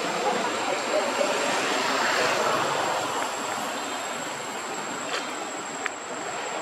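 Steady outdoor background noise, an even hiss-like rumble with a thin high whine over it, and two small clicks about five and six seconds in.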